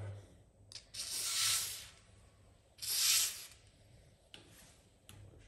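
Aerosol can of cutting oil spraying onto a pipe threading die in two hissing bursts: the first about a second long, the second shorter.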